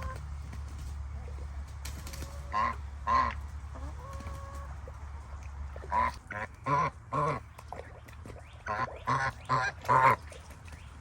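Domestic geese honking in short runs of loud calls, about ten honks in three bursts.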